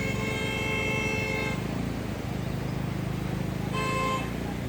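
Vehicle horn honking: one long honk of about a second and a half, then a short honk near the end, over the low steady rumble of a vehicle on the road.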